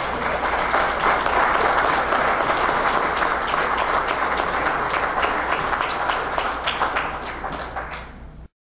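Audience applauding, many hands clapping together. The applause fades near the end and then cuts off abruptly to silence.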